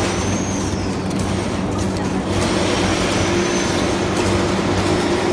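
Automatic sugarcane peeling machine running as a purple sugarcane stalk is fed through it: a steady electric motor hum under the whir and rasp of its peeling heads, with a higher steady tone joining about halfway through.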